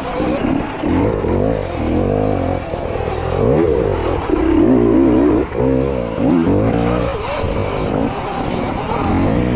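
Electric dirt bike's motor whine rising and falling in pitch as the throttle is worked, over tyre and trail noise.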